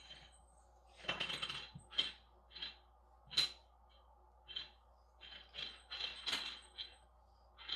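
Zirconium haptic fidget coin being handled: a dozen or so short, sharp metallic clicks at irregular spacing, a few of them in quick runs.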